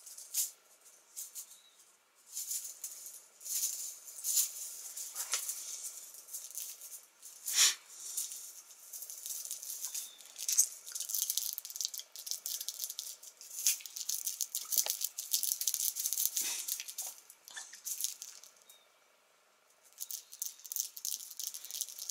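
Cat wand toy with a tuft of red strands rustling and rattling in quick, irregular crackles as it is shaken and batted, with short pauses about two seconds in and a few seconds before the end.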